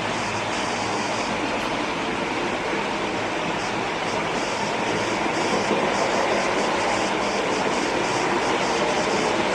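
OO-gauge model train running steadily along the track: the locomotive's electric motor whirring and the wheels running on the rails, with a high hiss that comes and goes several times.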